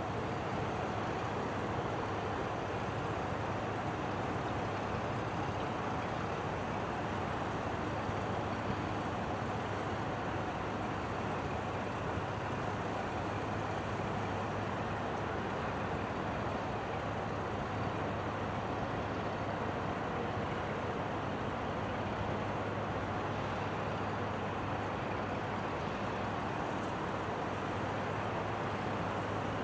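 Steady low engine drone with a constant hum underneath an even rushing noise, unchanging throughout, from a container ship under way.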